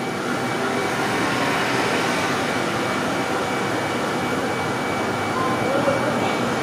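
Heavy trucks driving past on a highway, led by a Freightliner Cascadia semi-tractor pulling a container trailer. Their engines and tyres make a steady noise that swells slightly about a second in.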